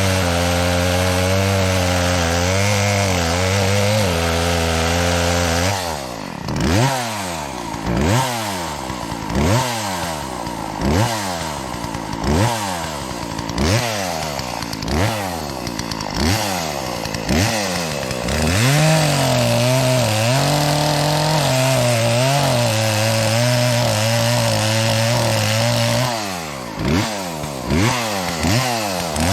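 Two-stroke chainsaw cutting into a tree trunk. It runs steadily under load at first, then revs up and drops back about every second and a half for several seconds. It settles into a steady cut again, then ends with a few more quick revs. Its owner admits the chain could have been sharper.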